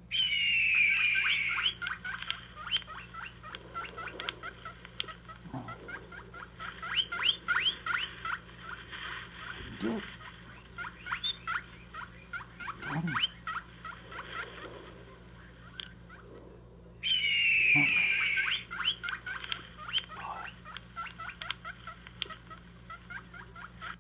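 Coyote vocalizations: a high howl falling in pitch, then a long run of rapid yips, with the same howl-and-yip sequence starting again about 17 seconds in.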